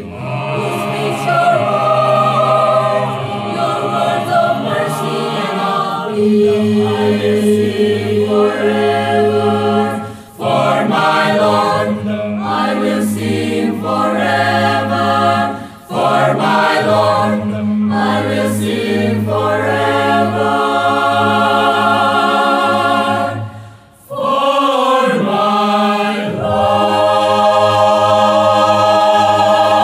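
Mixed-voice choir of sopranos, altos, tenors and basses singing an English hymn in harmony, in sustained phrases with short breaths between them. The phrase "I will sing forever" is sung, and the choir ends on a long held chord on "Lord".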